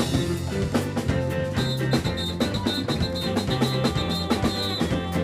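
Live band playing an instrumental passage: drum kit keeping a steady beat over a moving bass line, with sustained keyboard or guitar tones.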